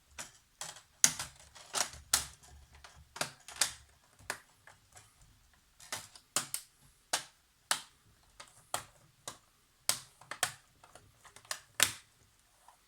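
Irregular sharp plastic clicks and taps, roughly two a second, some louder than others, as the plastic keyboard frame of a Dell Latitude E5420 laptop is pressed and snapped into place.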